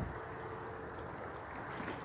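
Steady wash of calm sea water around shore rocks, an even hiss with no distinct splashes or knocks. A faint steady hum runs through about the first second.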